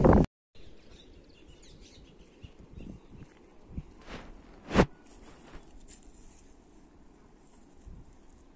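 Quiet rural ambience with faint, scattered bird chirps, broken by a few short knocks, the sharpest and loudest one about halfway through.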